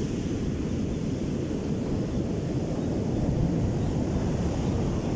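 Rough surf breaking on a beach, with wind on the microphone making a steady low rumble.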